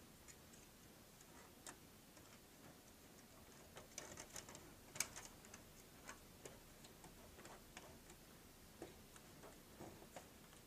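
Faint, scattered small clicks and ticks from nylon cable ties being handled and fitted around a fiber cable on a sliding tray, with a short cluster of clicks about four seconds in.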